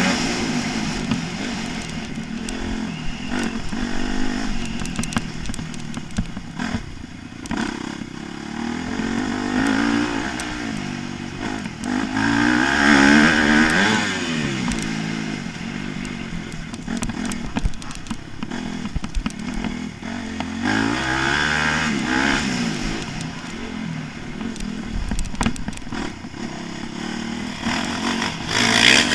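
Motocross bike engine, heard on board, revving up and falling back again and again as the bike is ridden hard around a dirt track, with small sharp clicks scattered through it.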